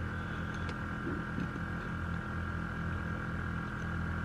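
Ford F350's 6.0 Powerstroke diesel idling, a steady low hum heard from inside the cab.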